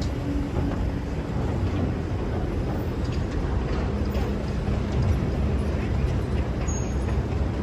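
Excavator's diesel engine running steadily, with a faint whine of the hydraulics under load at times and a few light knocks.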